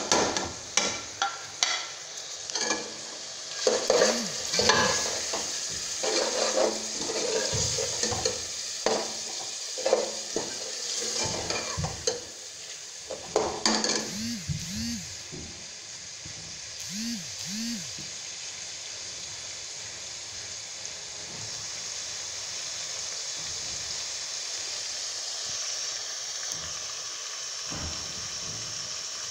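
Minced meat frying with freshly added ground spices in a steel pot, stirred with a steel spoon: sharp scrapes and knocks of the spoon against the pot for about the first fifteen seconds, then a steady sizzle once the stirring stops.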